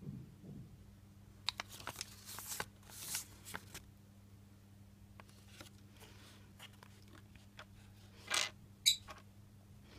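Paper instruction leaflet from a Kinder Surprise toy rustling and crinkling in the hands in a run of crackly bursts. Near the end, small plastic toy parts are handled, with one sharp click.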